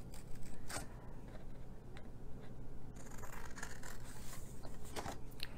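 Scissors cutting through cardstock: a few short sharp snips, about a second in and near the end, with faint paper rustling between them.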